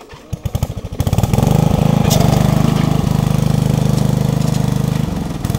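Riding lawnmower engine being cranked over, quickening for about a second until it catches, then running steadily.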